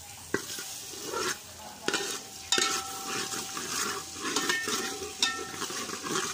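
Steel ladle stirring garlic in hot fat in an aluminium pot, scraping and clinking on the metal, with a light sizzle. Four sharp knocks of the ladle on the pot leave it ringing.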